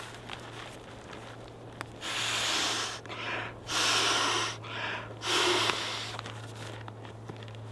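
A person blowing by mouth into the valve of an inflatable sleeping pad to inflate it: about five strong, breathy exhalations, starting about two seconds in and ending around six seconds in.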